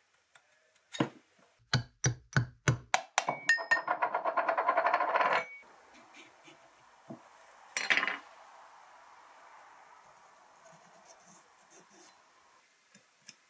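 A round metal part of the air impact wrench's motor drops onto the wooden workbench, bouncing with quicker and quicker clinks and then rattling as it spins down, until it stops suddenly. One sharp metal clink follows, then faint scraping and tapping of a pick in the wrench housing.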